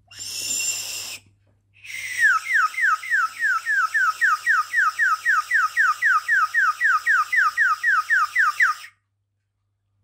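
Water-filled 3D-printed PLA bird whistle blown: a short breathy puff, then about seven seconds of warbling whistle, a quick falling chirp repeated about four times a second, made by air forced through the water inside. It stops suddenly near the end.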